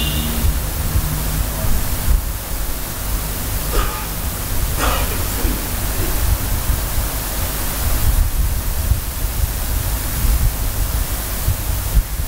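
Steady room noise in a mosque hall: an even hiss over a low rumble, with a couple of faint brief sounds about four and five seconds in.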